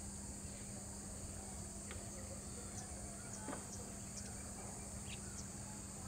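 Faint outdoor ambience of a steady high-pitched insect chorus, with a few short, faint bird chirps scattered through it and a low steady hum underneath.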